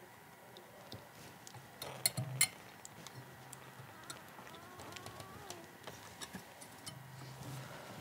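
Small plastic clicks and faint handling ticks of solid copper wire being pushed into push-in wire connectors, with two sharper clicks about two seconds in.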